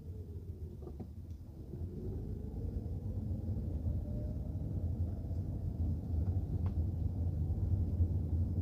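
A car driving: a steady low engine and road rumble with a faint engine tone that dips and then climbs slowly, getting a little louder after a couple of seconds. A few faint ticks.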